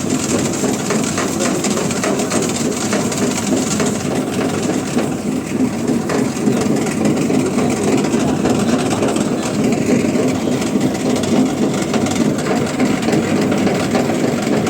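Heavy farm machinery engine running steadily, a continuous loud drone.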